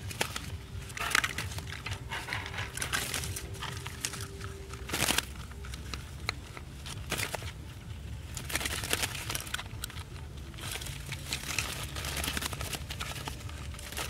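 Irregular crinkling and rustling from hands handling doves inside a small wire birdcage with a paper-lined floor.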